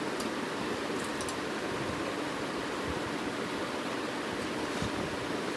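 Steady rushing background noise with no pitch to it, and a few faint light clicks about a second in.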